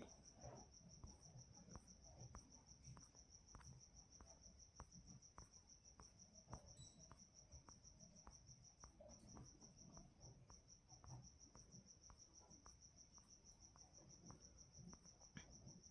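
Near silence with the faint, steady high trill of a cricket, and faint scattered ticks.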